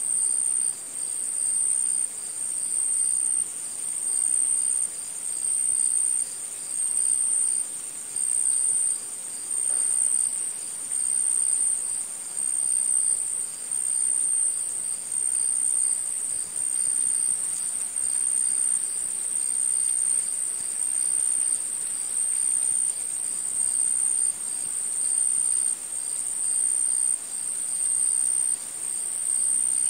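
An insect trilling, high-pitched, in evenly repeated phrases of about a second with short breaks between them.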